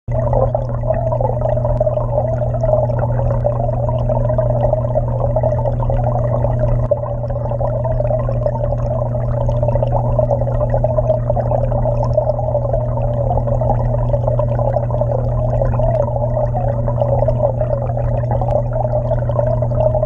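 Muffled, steady gurgling rush of circulating aquarium water heard from underwater, with a constant low hum beneath it.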